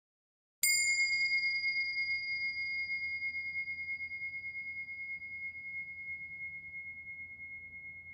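A single bell-like ding struck about half a second in: one clear high tone with brighter overtones that fade within a second, then a long ring that slowly dies away.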